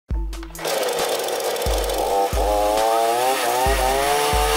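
Two-stroke chainsaw engine revving up and down several times, over music with a deep bass beat about every two-thirds of a second.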